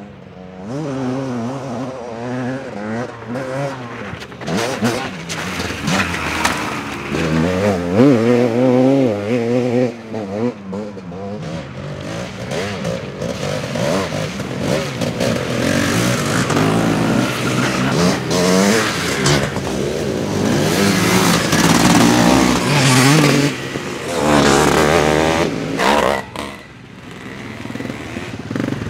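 Vintage dirt bike engines revving as the bikes pass one after another, their pitch rising and falling with the throttle and gear changes, with a brief lull near the end.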